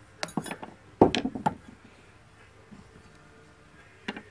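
A quick run of sharp metal clinks and knocks, loudest about a second in, with one more near the end: a steel socket and parts handled against a Polaris Sportsman front differential cover as its old bearing is knocked out.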